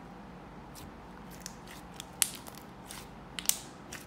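Thick, bead-filled slime being pressed and squished by hand, giving scattered sharp clicks and pops: a clicky slime. The loudest click comes about two seconds in, with another about a second and a half later.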